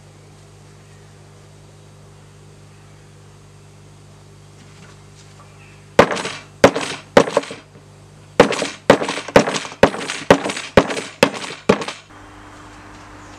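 A wooden baton striking the spine of a knife set into the end of an upright green-wood stick: a run of about eleven sharp knocks, roughly two a second, starting about halfway through. The knife is being batoned in to split a slot for a saw blade.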